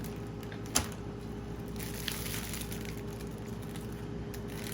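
Steady appliance hum with a single sharp click about a second in, and faint rustling or crunching later on.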